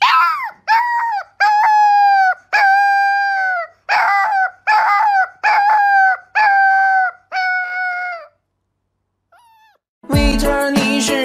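A husky-type puppy howling in a run of about ten short, high howls over some eight seconds. Each howl rises at the start and then holds a steady pitch. Music starts near the end.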